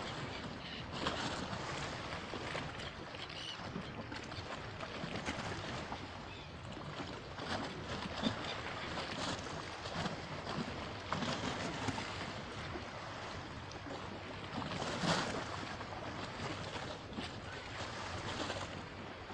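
Sea water lapping and splashing in small irregular slaps, with wind on the microphone.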